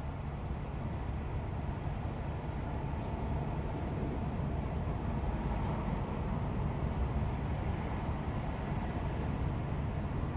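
Steady low rumble of road traffic, swelling slightly in the middle as a vehicle passes.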